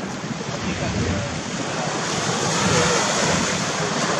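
Small waves washing onto a sandy beach, with wind buffeting the microphone. The wash swells briefly near the end.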